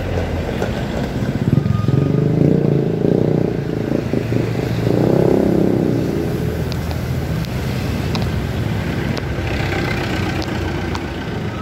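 Street traffic: motor vehicles passing close by, their engine sound swelling loudest between about two and six seconds in, then easing into steady road noise.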